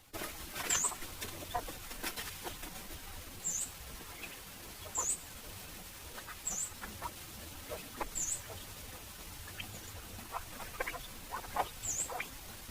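Birds calling: a short, high chirp repeated every second or two, with softer lower chirps in between, over a steady outdoor background hiss.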